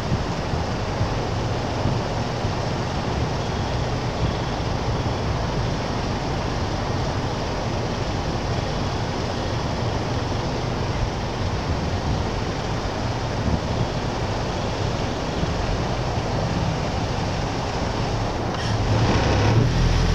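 Steady noise of a car driving slowly along a street, tyres and wind rushing past the microphone, growing louder near the end.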